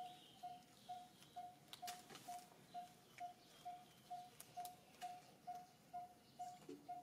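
A faint single note repeated evenly, about twice a second, with scattered light clicks and ticks.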